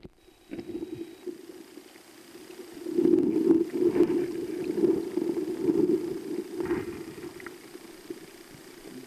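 Muffled rumble and gurgle of river current picked up by a camera held underwater, swelling louder for a few seconds in the middle, with a few faint knocks.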